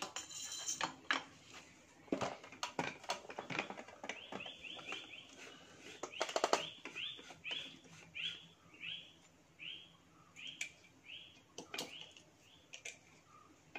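A bird calling a run of short, evenly repeated notes, about two a second, from about four seconds in until near the end. Under it, sharp clicks and knocks of submersible pump parts being handled as the impeller stages are fitted on the shaft, the loudest clatter about halfway through.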